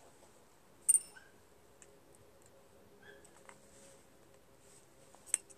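Small sharp clicks and light taps as the plastic float and its pin are worked off a Honda lawn mower carburetor by hand. There is one loud click about a second in and another near the end.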